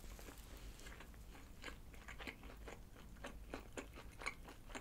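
A person chewing a mouthful of pizza close to the microphone: quiet, irregular crunching and small mouth clicks.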